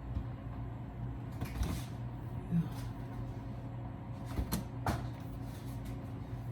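A few scattered knocks and bumps from a refrigerator being tugged at and jostled, over a steady low hum.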